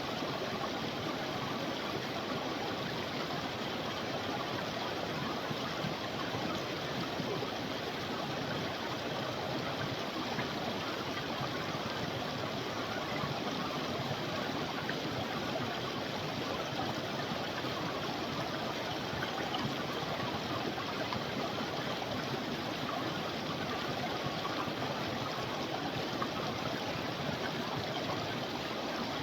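Creek water flowing steadily, a constant even rush and babble with no change.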